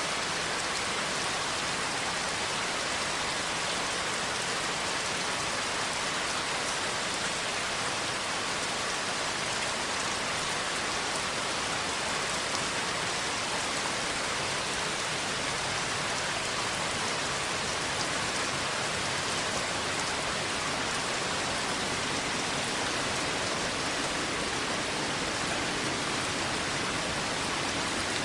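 Steady rain falling, an even unbroken hiss with no letup.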